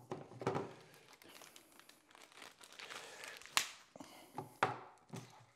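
A small plastic bag of hardware crinkling as it is handled, with a few sharp clicks of hard plastic parts, the two strongest about a second apart in the second half.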